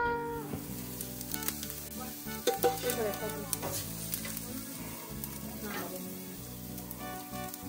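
Steaks and other meat sizzling on a grill, with a steady hiss and occasional sharp clicks, over faint background music.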